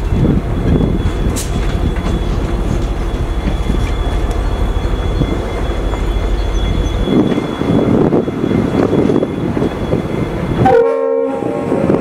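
Train rolling across a steel girder bridge: the trailing diesel locomotive's engine rumble and the wheels clattering along the rails. The low rumble drops away about seven seconds in, and a brief chord of several steady tones sounds about eleven seconds in.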